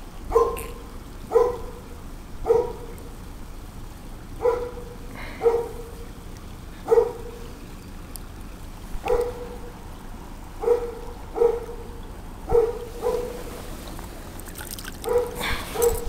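About a dozen short barks at uneven intervals, roughly one a second and some in quick pairs, over the steady trickle of a shallow stony stream.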